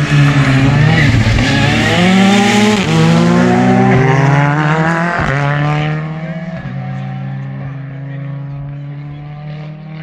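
Rally car engine at full throttle, revs climbing and dropping sharply with upshifts about three and five seconds in. After that it holds a steadier pitch and fades as the car pulls away.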